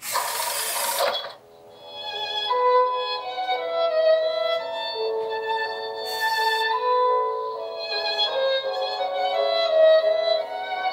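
Violin music: a melody of held, bowed notes that comes in about a second and a half in, after a short burst of noisy sound that cuts off.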